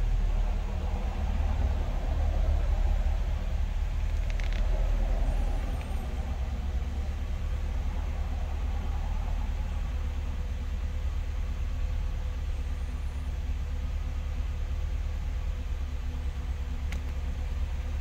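Car engine idling: a steady low rumble, easing slightly about six seconds in, with two faint clicks, one about four seconds in and one near the end.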